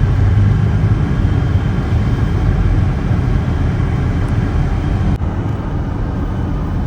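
Steady road and engine noise of a moving car heard from inside the cabin: a low rumble with no change in pace.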